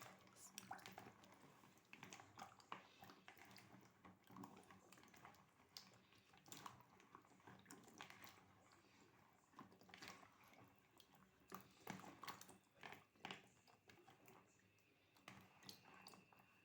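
Faint, irregular squishing and light clicks of hands rubbing dried figs in a basin of water to wash the dust off them.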